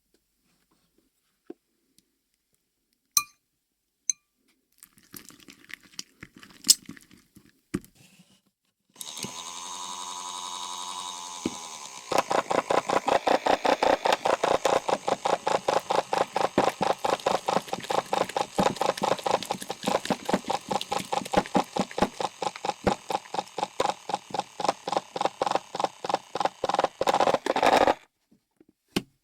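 A few clicks, then a Daiso mini washing machine's motor starts with a steady hum. After a few seconds it settles into a fast, regular pulsing beat, about five a second, as it churns slime, and cuts off abruptly near the end.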